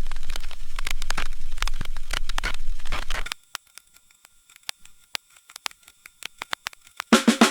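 Vinyl record crackle: dense pops and clicks over a low hum. About three seconds in it thins to sparse, isolated clicks over near silence, then comes back loudly with a low hum near the end.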